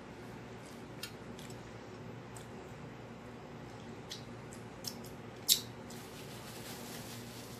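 Close-up eating sounds: chewing with scattered wet mouth clicks and smacks, one much louder sharp click about five and a half seconds in, over a steady low background hum.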